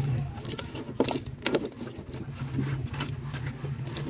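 A ladle stirring a pot of beef broth, knocking against the pot and the bones and potatoes inside several times at uneven intervals, over a steady low hum.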